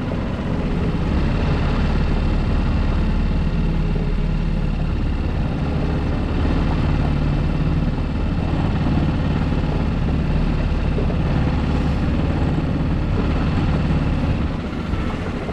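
Outboard motor pushing a small fishing boat along at a steady speed: an even low drone with a rush of water and wind over it.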